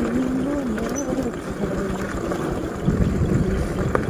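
A vehicle engine running under heavy wind rumble on the microphone, its pitch wavering up and down.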